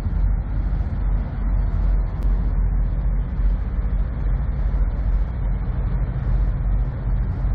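Diesel semi-truck engine idling: a steady low rumble.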